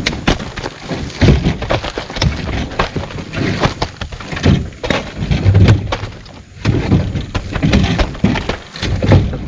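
Heavy oil palm fruit bunches being thrown down and landing one after another, making an irregular series of loud thuds and knocks with sharp cracks among them.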